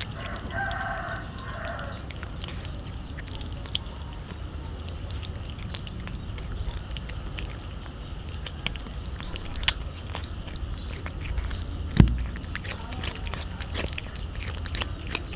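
Cat chewing and licking raw fish flesh close up: a steady run of small wet smacks and clicks, with one sharp knock about twelve seconds in and a short pitched sound about half a second in.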